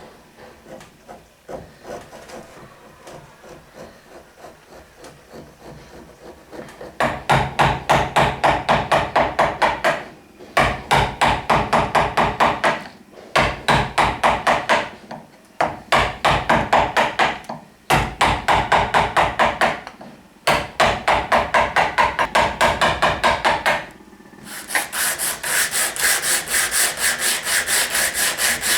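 Rapid back-and-forth strokes of a hand tool working wood, about four or five a second, in runs of a few seconds with short pauses. Near the end the strokes turn brighter and hissier, like sawing.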